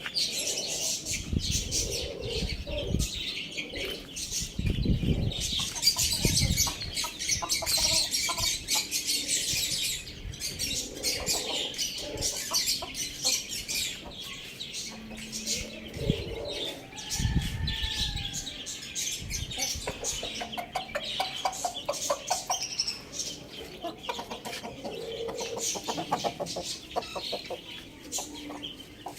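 Chickens clucking, with rustling, wing flaps and many short scratchy clicks.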